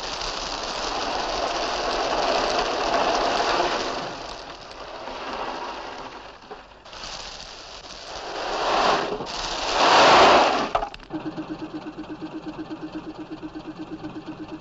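Loads of rubble stones sliding and pouring off a pneumatically tipped load bed in two long rushing surges. The second surge is the loudest and ends abruptly about eleven seconds in. Then an engine idles with an even pulse of about four to five beats a second.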